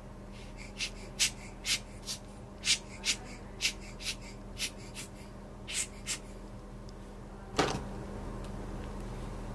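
Ear pick scraping inside the ear canal during traditional Chinese ear cleaning: about a dozen short, crisp scratches over some five seconds, then one louder scuff near the end.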